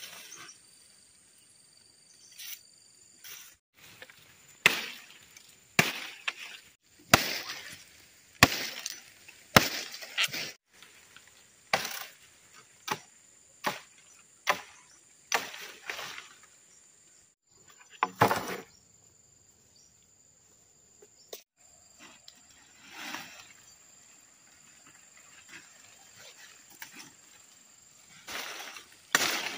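Dry bamboo stems and dead brush cracking and snapping as they are pulled out, broken and thrown aside. The sharp cracks come about once a second for a while, then further apart, over a steady thin insect buzz.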